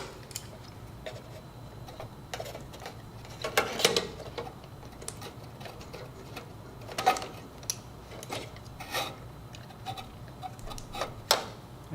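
Scattered clicks and small handling noises of wire terminals being pulled off one control board and pushed onto the spade connectors of a new one, over a low steady hum.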